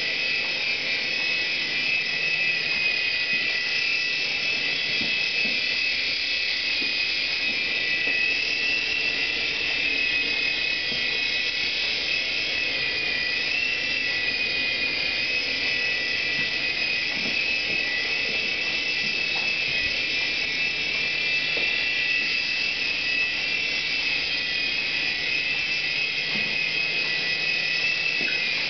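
Air Hogs Sharpshooter toy RC helicopter's small electric motors and rotors whining steadily at a high pitch, the pitch wavering slightly now and then.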